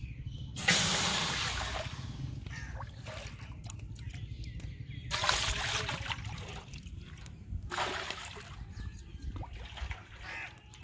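Water poured by the ladleful into a large aluminium cooking pot: three splashing pours a few seconds apart, the first the loudest.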